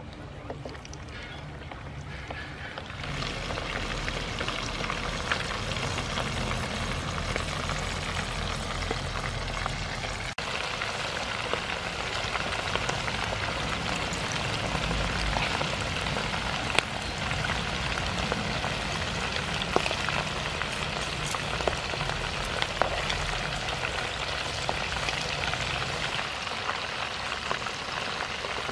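Noodle-wrapped shrimp deep-frying in hot soybean oil in a pan: a steady crackling sizzle that grows louder about three seconds in.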